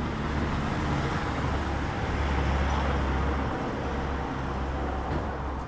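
Road traffic on a wet street: a motor vehicle passing, its engine rumble and tyre hiss swelling to a peak about halfway through and then fading.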